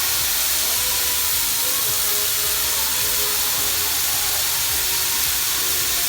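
Beef burger patties sizzling steadily as they sear in hot cooking oil in a pan.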